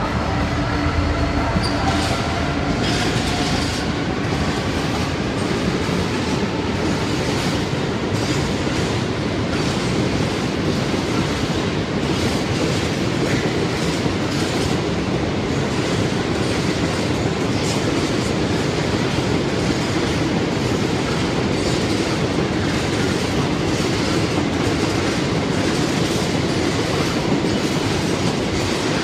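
Class 66 diesel locomotive 66152 passing under power, the note of its EMD two-stroke diesel engine fading over the first couple of seconds. Then a long train of empty wagons rolls past with steady loud wheel-on-rail noise and faint regular clatter from the wheels.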